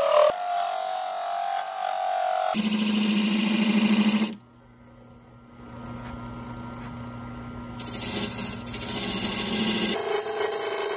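Wood lathe turning a spalted oak cup blank while a hand-held tool cuts and scrapes the spinning wood. The cutting stops about four seconds in, leaving only the lathe motor's steady hum, and starts again about eight seconds in.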